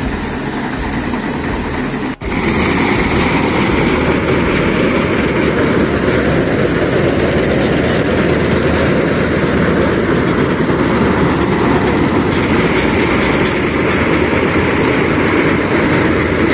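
Swaraj 8100 combine harvester running steadily at working speed: engine and threshing machinery. A brief break about two seconds in, after which the machine noise is louder as it cuts paddy.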